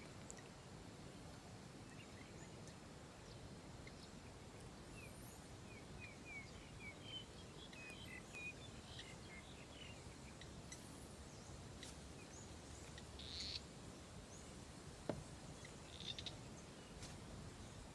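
Faint outdoor ambience: low steady background noise with a run of short, high bird chirps about five to nine seconds in, and a few scattered clicks near the end.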